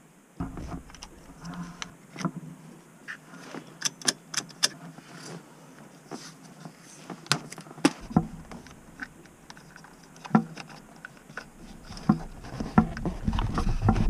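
Irregular plastic clicks and rattles of a BMW X3 seat belt buckle being handled: its cover halves fitted back together, then the buckle worked back into place beside the seat. The clicks get busier and louder near the end.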